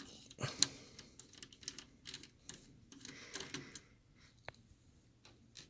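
Light, scattered clicks and taps from small screws and a Phillips screwdriver being handled against an opened laptop's plastic chassis, with a brief rustle about three seconds in.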